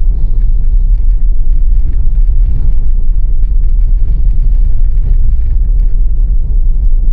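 Tesla driving on a snowy road: a steady low rumble of tyre and road noise.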